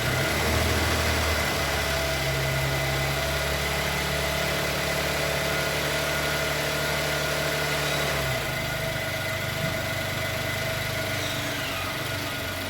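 2024 Toyota Tundra's twin-turbo V6 engine idling just after start-up, running to circulate fresh oil after an oil change. The idle settles to a lower pitch about eight seconds in.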